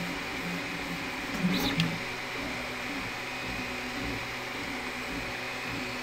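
Artillery Genius Pro FDM 3D printer printing PLA with its fans at full speed: a steady fan hiss with low stepper-motor tones that shift as the print head moves, and a brief louder rising whine about a second and a half in. It reads about 39 dB on a sound level meter.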